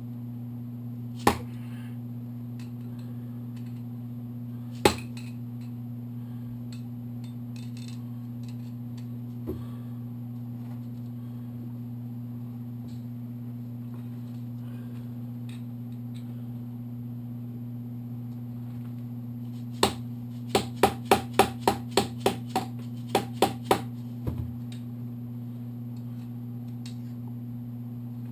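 Metal hand tools and parts clinking and tapping on a workbench: a few single sharp clicks, then a run of about ten quick metallic taps, about three a second, near the end. A steady low hum runs underneath.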